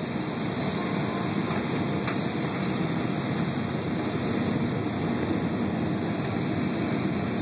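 Steady jet airliner cabin noise heard from a window seat, the even rush of engines and airflow during the descent on final approach to landing.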